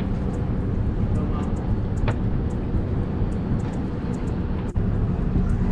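Boat engine running steadily underway, a low, even rumble.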